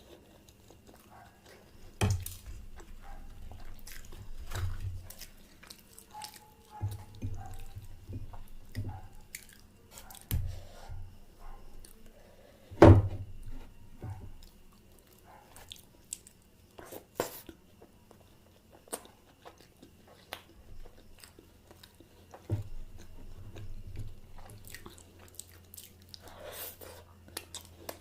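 A person chewing food close to the microphone, with scattered small clicks and mouth sounds and a few sharper knocks, the loudest about 13 seconds in.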